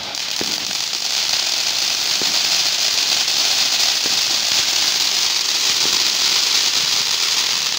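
Ground fountain firework spraying sparks: a loud, steady hiss that swells just after the start, with a few faint pops in it.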